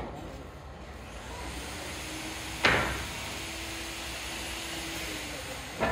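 A single sharp knock about two and a half seconds in, the loudest sound, and a second knock near the end, over a steady background hum.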